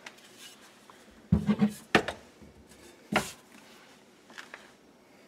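Water bottles being set down on a wooden cabinet shelf: a cluster of knocks about a second in, a sharp knock near two seconds, another about three seconds in, and a faint tap later.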